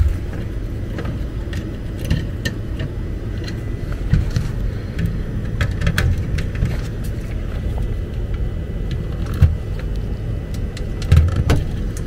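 Scattered small clicks and rattles of a screwdriver and thin thermostat wires being worked at the screw terminals of a furnace control board, over a steady low rumble.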